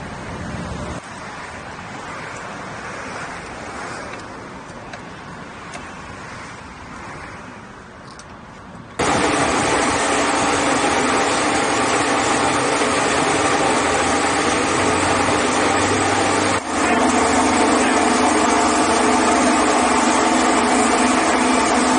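Moderate background noise, then about nine seconds in a loud, steady machine sound takes over: a piston air compressor running. It dips briefly once about two-thirds of the way through.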